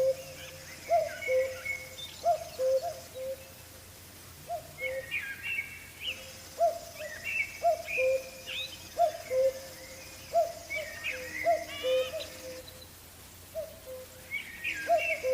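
Birds calling: a low short call repeated about twice a second under higher chirps and trills, with a steady high hiss that drops out twice.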